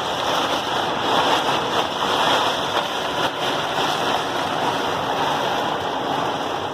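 Heavy rain pouring down in a summer storm, a steady rushing wash heard from inside a trailer, with wind.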